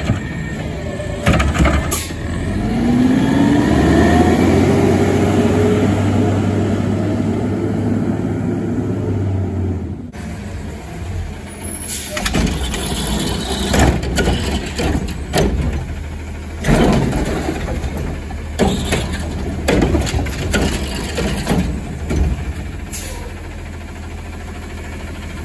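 A garbage truck's engine revs with a rising tone while its automated arm lifts and tips a wheeled cart. Then the sound changes to a front-loader garbage truck idling while carts are emptied into its carry can, with a series of sharp knocks and bangs.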